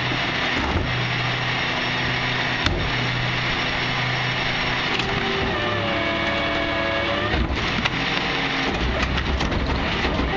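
Garbage truck's diesel engine running while the Wayne Royal GT rear loader's claw cart tipper lifts and dumps a wheeled cart into the hopper. A sharp click comes just under three seconds in, and a whining tone that rises and falls sounds for about two seconds in the middle.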